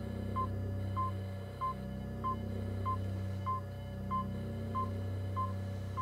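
A short electronic beep repeating steadily, about three every two seconds, over a low droning hum that slowly swells and fades.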